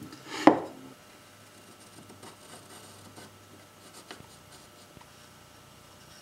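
A single sharp knock about half a second in, then a carpenter's pencil scratching faintly along a pine 2x4 as the outline of a paper template is traced onto it.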